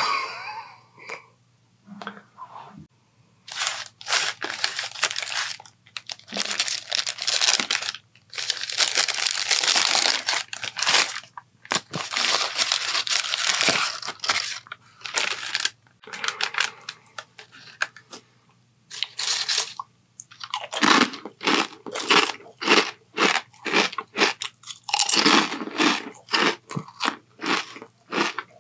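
Close-miked paper sandwich wrapper crinkling and rustling loudly in long bursts as it is unwrapped. Near the end comes a run of many short, sharp crackles.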